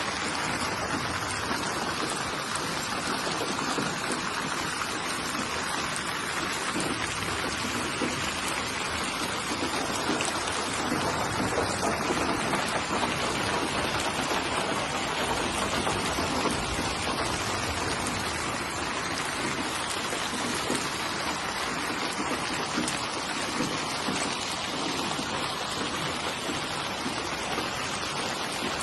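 Steady rain falling, a constant even patter of raindrops.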